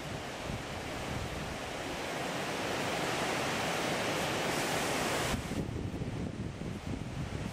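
River water rushing over shallow rapids, a steady hiss, with wind buffeting the microphone in low gusts. The rush swells through the middle and drops off suddenly about two-thirds of the way through, leaving a quieter, duller rush and the wind rumble.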